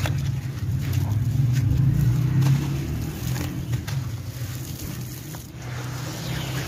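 Wet, gritty sand-cement chunks being squeezed and crumbled by hand in muddy water: squelching with scattered gritty crackles, over a steady low rumble.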